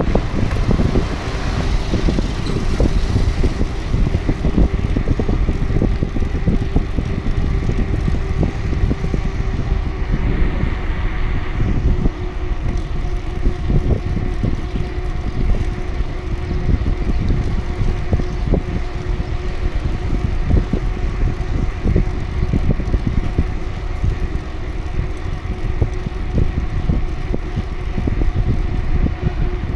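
Bicycle rolling along an asphalt road: a continuous low rumble with frequent small rattles and knocks, and a faint steady hum throughout.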